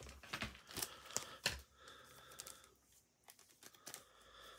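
Faint handling of the action figure's plastic and cardboard packaging: scattered crinkles and clicks over the first two and a half seconds, then a few light taps.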